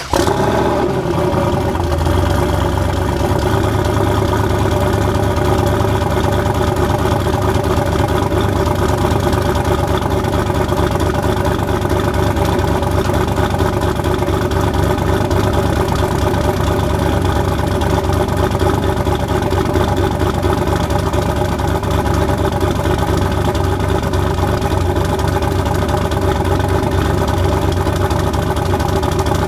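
Turbocharged LS V8 (LM7 5.3-litre) in a Chevy S-10 catching right at the start and then idling steadily on a cold start, newly fitted with a smaller 7875 turbo on a .96 housing.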